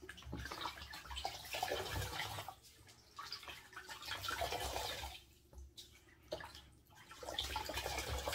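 Water sloshing and dripping as an aquarium pump's dirty filter sponge is squeezed out and rinsed in a bucket of clean water. It comes in several bouts with short pauses between.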